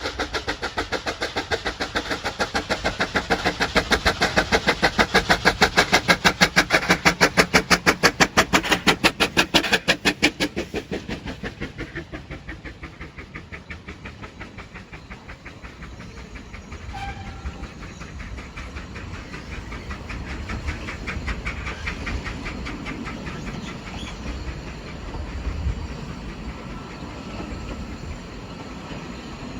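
Narrow-gauge steam locomotive working, its exhaust beats coming fast and even, growing louder and then fading away after about ten seconds into a quieter rumble of the train running on.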